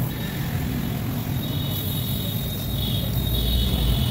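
Gas brazing torch flame burning steadily with a low rumble while a diamond segment is heated and brazed onto a core drill bit. A thin, high steady whistle grows louder about halfway through.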